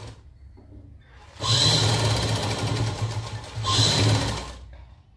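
Sewing machine stitching fast for about three seconds, starting a little over a second in. It eases briefly, surges again and then stops, as a row of folded fabric strips is sewn down.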